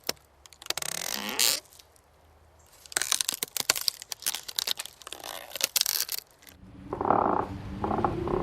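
Horror sound effect: bursts of crackling, crunching noise full of sharp clicks, then a low, rough, growling sound that swells up near the end.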